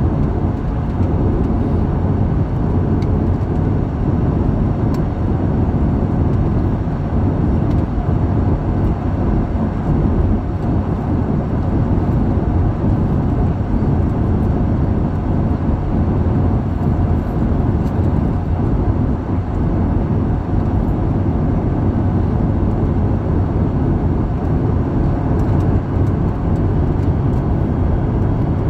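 Steady cabin noise of a jet airliner in flight: a deep, even rumble of engines and rushing air, with a few faint steady hums.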